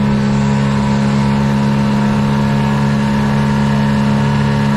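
A small boat's outboard motor running steadily at high speed, with water rushing and spraying along the hull. The engine drone stays at one pitch throughout: the throttle is held open.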